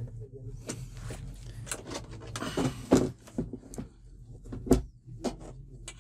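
A 32-inch LED TV being lifted and handled, with clicks and knocks from its casing, a scraping rustle about two and a half seconds in, and a heavier knock near five seconds.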